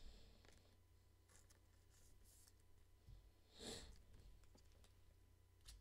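Near silence with faint rustling of a trading card being handled and slid into a clear plastic sleeve. A slightly louder soft swish comes a little under four seconds in.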